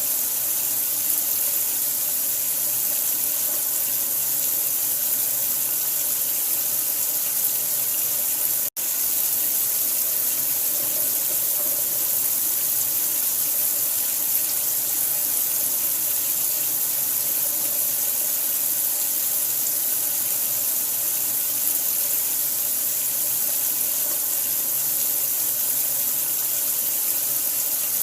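Steady running water with a hissy, even rush, cut to silence for an instant about nine seconds in.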